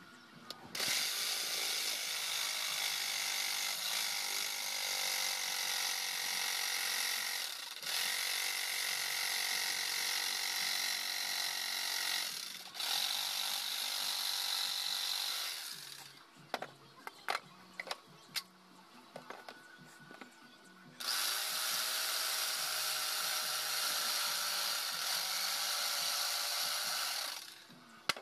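Handheld electric jigsaw cutting through a wooden board, running in long spells with two brief stops. It is silent for a few seconds in the middle, when there are only scattered clicks and knocks, and then cuts again until shortly before the end.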